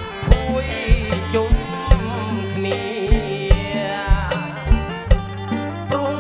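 Live band playing a Khmer orkes dance song: drum kit keeping a steady beat over bass and electric guitar, with a male singer's voice on top.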